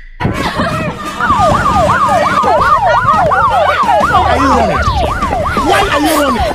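Siren sound effect wailing quickly up and down, about three sweeps a second. It starts about a second in and cuts off suddenly near the end.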